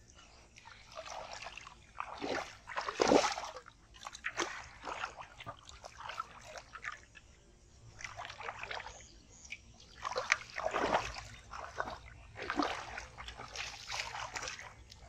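Shallow muddy water splashing and sloshing in irregular bursts as a person wades and handles caught fish. The loudest splashes come about three seconds in and again around eleven seconds.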